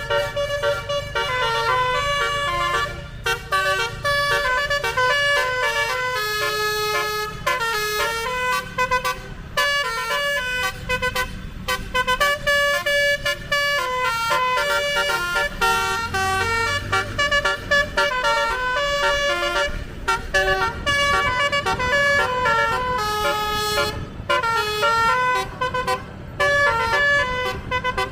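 Basuri telolet bus horn with a DAV module playing a fast melody: a long run of short, stepped honking notes, several a second, broken by a few brief pauses.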